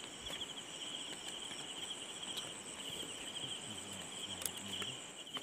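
Crickets chirping in a steady, fast-pulsing high trill, with a few faint clicks.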